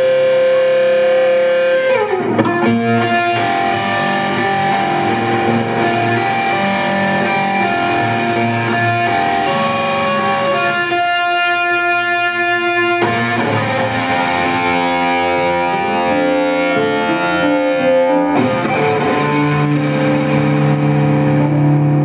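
Live rock band playing an instrumental passage: electric guitar through effects with some distortion, over bass guitar and drums. About halfway through, the low end drops out for a couple of seconds, leaving the guitar ringing alone.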